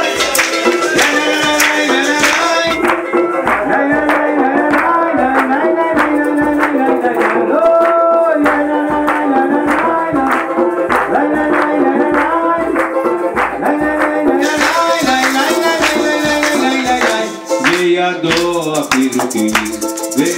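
Live acoustic folk music with no singing: a melody instrument plays over a hand drum and a shaker keeping a steady beat. The shaker drops out for much of the middle and comes back near the end.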